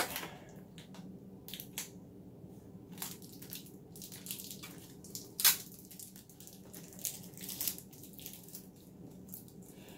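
Scattered small clicks, taps and rustles from a plastic Dyson DC18 upright vacuum being handled and inspected, with one sharper, louder click about halfway through.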